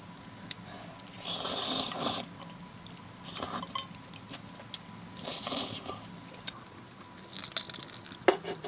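A person eating noisily: three airy slurps spaced about two seconds apart, with a few small sharp clicks between them.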